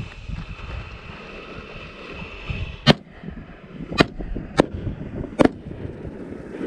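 Firework cake firing its shots: a steady high-pitched sound for the first few seconds, then a string of sharp reports about a second apart, four of them plus one more right at the end.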